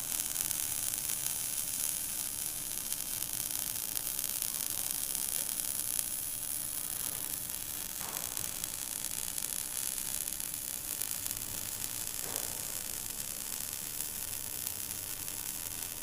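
Stick welding arc burning steadily, with a continuous crackling hiss as the electrode melts into the metal.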